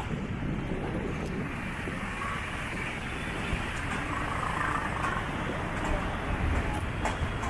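Steady city street traffic noise, with minibuses and cars passing close by and running in the street.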